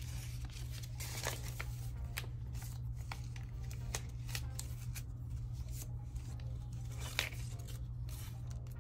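Paper banknotes being handled and slid into a cash envelope: scattered short rustles and flicks of paper over a steady low hum.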